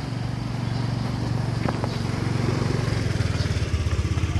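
Small motor scooter engine running at low speed, a steady low engine note.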